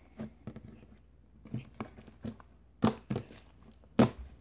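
Hands kneading and folding cloud slime with Orbeez water beads mixed in: a string of short, soft sticky clicks and pops, with two louder sharp ones, about three seconds in and near the end.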